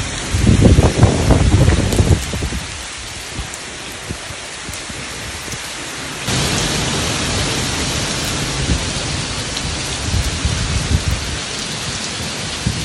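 Heavy rain from an approaching hurricane pouring down and splashing on pavement. A loud low rumble of thunder comes about half a second in and lasts over a second. About six seconds in the downpour suddenly grows louder, with more low rumbles near the end.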